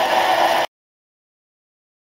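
Small lathe running while a drill bit bores into the spinning metal workpiece, a steady machine noise that cuts off abruptly less than a second in, leaving dead silence.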